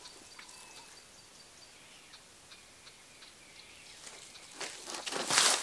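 Quiet bush ambience with faint bird chirps, then a loud, brief rush of rustling noise about five seconds in.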